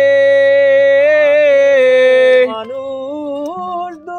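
A man singing a Bengali folk song, holding one long, slightly wavering note for about two and a half seconds, then going on more softly.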